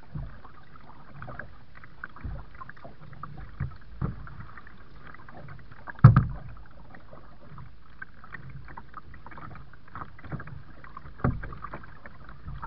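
Kayak on the water: paddle strokes and water splashing and dripping, with a few knocks on the boat, the loudest about six seconds in.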